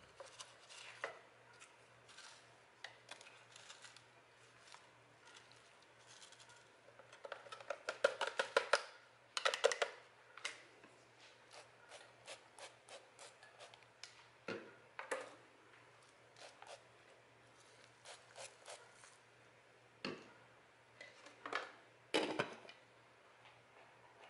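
Rustling and crinkling of a seasoning packet being shaken over chicken and potatoes in a slow cooker crock, with scattered small clicks. A dense run of crinkling comes a third of the way in, and a few louder knocks near the end as the glass lid goes onto the crock.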